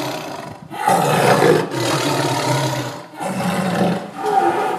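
A tiger roaring in a series of bouts, each about a second long, with short breaks between them.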